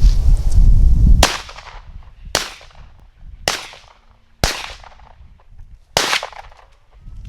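Five shotgun shots about a second apart, the last after a slightly longer gap, each crack trailing off in an echo. Heavy wind rumble on the microphone fills the first second.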